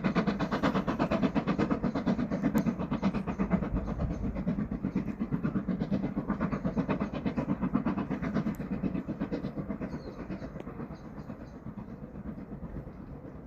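Steam train running, a fast, even rhythmic pulsing that grows fainter over the last few seconds as it draws away.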